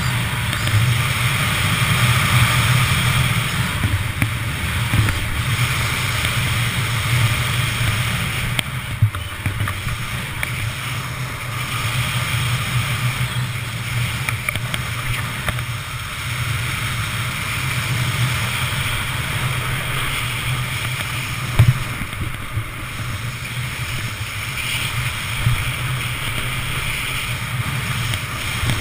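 Snowboard sliding and carving down groomed snow, a continuous scraping hiss over the low rumble of wind on the microphone. Two short sharp knocks stand out, about 9 and 22 seconds in.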